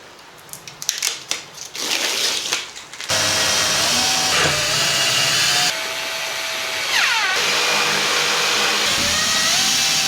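A power tool working: after some scattered taps and clicks, a motor runs loudly in several abruptly cut stretches, its whine dropping in pitch as it slows down, twice.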